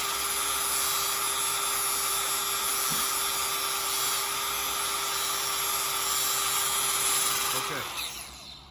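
Angle grinder running steadily as it grinds down a weld bead on steel plate, with a steady whine over the grinding noise. Near the end it is switched off and the whine falls as the disc spins down.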